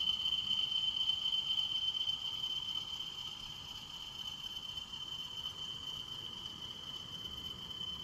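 Steady, high-pitched insect trill, a cricket-like chirring held on one tone, over a faint low rumble that eases off slightly a few seconds in.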